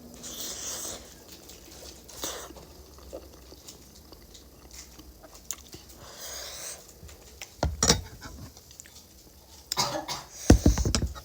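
Person eating spicy Korean instant noodles: short slurps and chewing noises. There are two louder clusters of low bumps and clatter, one about eight seconds in and one near the end.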